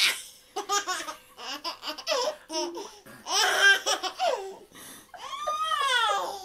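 A toddler laughing hysterically in repeated bursts of giggles and squeals, loudest about three and a half seconds in.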